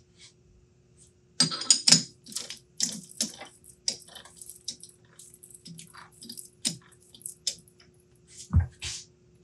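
A steel bar and tools clinking, scraping and knocking against a metal lathe chuck as it is worked by hand, in a quick irregular run of clicks. There is a heavier thump about eight and a half seconds in.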